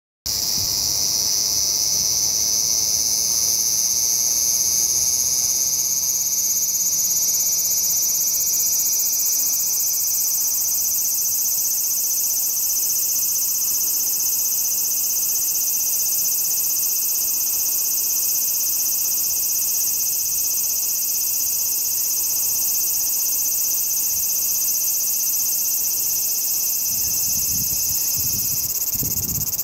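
Large brown cicada (aburazemi, Graptopsaltria nigrofuscata) singing: one continuous, high-pitched buzz that starts suddenly and holds steady without a break.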